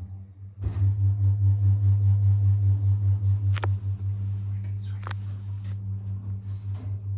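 Passenger lift running: a steady low electric hum from its drive starts up and holds as the car travels, with two sharp clicks in the middle.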